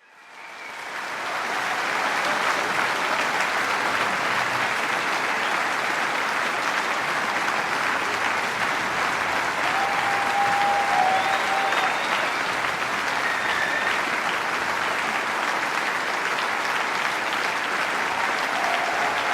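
Large crowd applauding, dense and steady, fading in over the first second or two.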